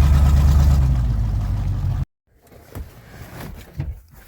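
Vehicle engine idling with a steady low rumble that cuts off abruptly about two seconds in, followed by a few faint clicks and knocks.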